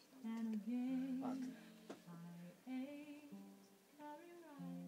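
A voice singing a slow melody in held notes that step and glide from pitch to pitch.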